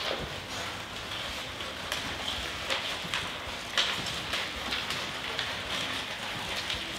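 Scissors cutting paper: irregular snips and clicks with paper rustling.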